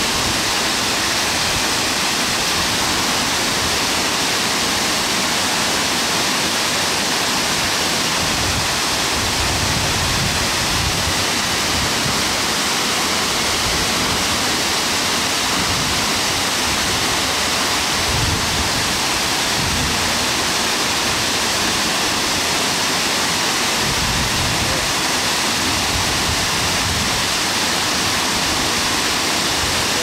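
An 88-metre waterfall falling onto rocks: a loud, steady, unbroken rush of water, with some uneven low rumble underneath.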